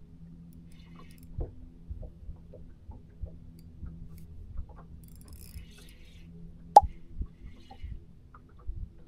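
A faint steady hum on a bass boat, with scattered light knocks and one sharp click about seven seconds in, from an angler handling a spinning rod and reel on the deck.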